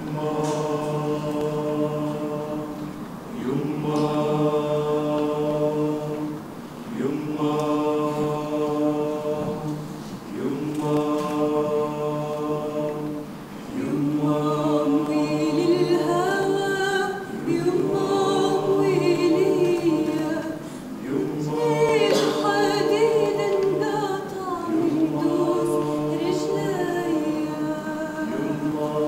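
Mixed choir of women and men singing an Arabic song a cappella: held chords in phrases of about three seconds over a steady low drone, then from about halfway a melody that moves above the held chord.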